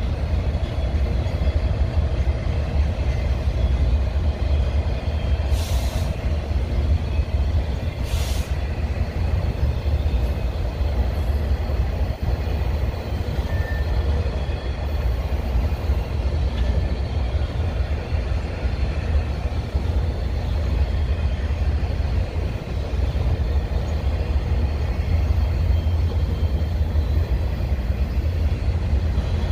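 Union Pacific manifest freight train's autorack and covered hopper cars rolling past, a steady deep rumble of wheels on rail. Two short high-pitched hisses come about six and eight seconds in.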